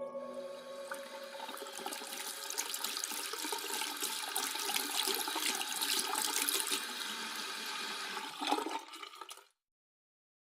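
Steady rushing water noise, with a louder surge about eight and a half seconds in, then cutting off abruptly about a second later.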